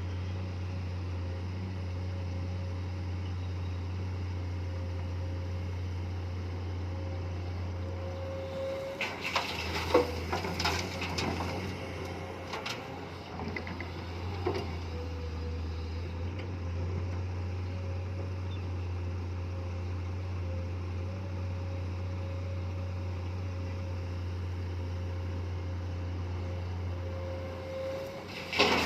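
Komatsu PC210 excavator's diesel engine running steadily with a faint hydraulic whine. About nine seconds in comes several seconds of clattering knocks, and more near the end, as loads of material strike the dumper's steel bed.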